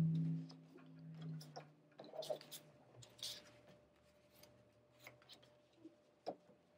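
Cardstock pennants and paper letters handled and set down on a table: scattered light taps and paper rustles, a few slightly louder.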